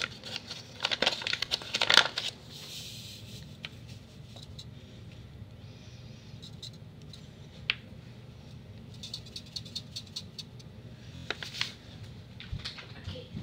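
Kool-Aid powder shaken and poured from its container into a foam cup: a rattling hiss over the first three seconds. Then a low steady hum with scattered small clicks and taps.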